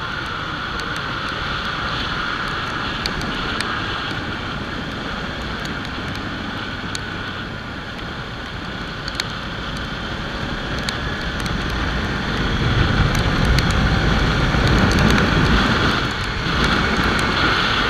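Riding noise from a Kawasaki Ninja 300 motorcycle in the rain: wind rushing over the microphone with the engine running underneath, growing louder about twelve seconds in, with scattered sharp clicks.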